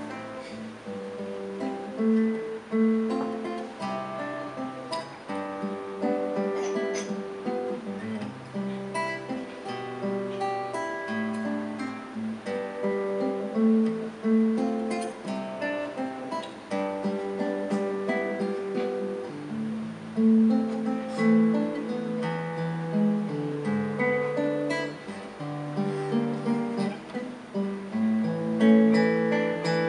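Solo classical nylon-string guitar played fingerstyle: a melody of plucked notes over a lower bass line, with notes ringing on.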